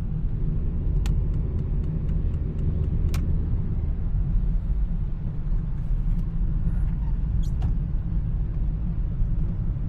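Steady low road and engine rumble inside a moving car's cabin, with a few short sharp ticks about 1, 3 and 7.5 seconds in.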